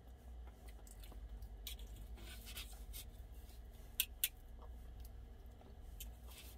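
Knife slicing raw steak on a plate: faint scraping and small ticks, with two sharp clicks of cutlery against the plate about four seconds in. A low steady hum runs underneath.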